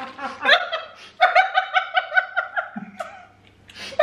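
A man and a woman laughing together. One high-pitched laugh comes as a quick run of short pulses for about two seconds, then dies away near the end.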